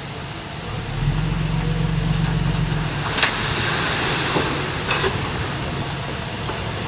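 Heavy diesel earthmoving machine running under load, its engine drone rising about a second in and holding steady, with a few sharp metallic clanks and a short hiss partway through.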